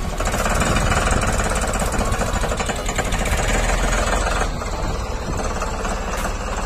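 Ford 3600 tractor's diesel engine working under the load of a fully loaded trolley, running with a fast, heavy clatter that eases a little after about four seconds.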